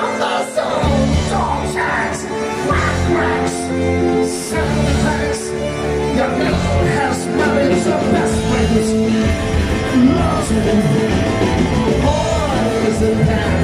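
A live progressive rock band playing: a man singing over sustained keyboards, bass and drums.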